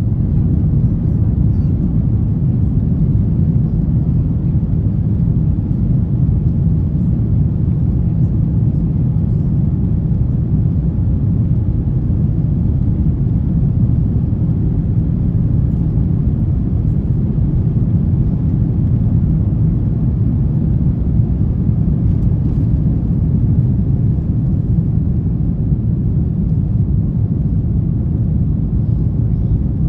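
Steady, loud low rumble of an Airbus A350-900 airliner cabin, engine and airflow noise, unchanging throughout.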